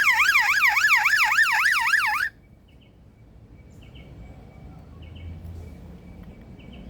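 Male superb lyrebird mimicking a car alarm siren: a loud, fast up-and-down warble, about four to five cycles a second, that cuts off suddenly about two seconds in. It is followed by faint short chirps and low background noise.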